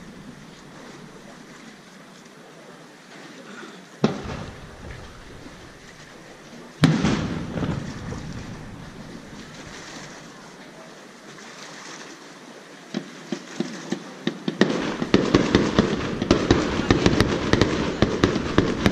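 Fireworks going off: two single shell bursts about four and seven seconds in, each a sharp bang with a slowly fading rumble. From about thirteen seconds comes a fast, dense run of crackling pops that grows thicker toward the end.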